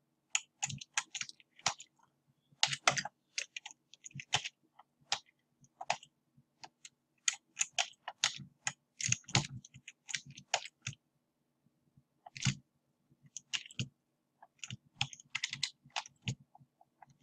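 Computer keyboard keys and mouse buttons clicking in irregular clusters, several clicks a second at times, over a faint low hum.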